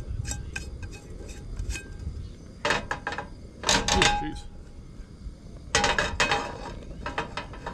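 A frying pan is set down on the metal pan supports of a portable butane stove and shifted about, giving several clanks and scrapes of metal on metal. The loudest come in three clusters, about three, four and six seconds in.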